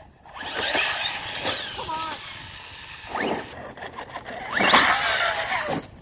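Electric radio-controlled trucks driving on loose dirt: the motors whine up in short bursts of throttle while the tyres scrabble and spray dirt, loudest about five seconds in.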